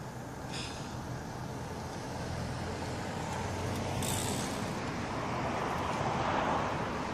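Road traffic noise: a steady low hum that grows louder toward a peak about six seconds in, with two brief high hisses.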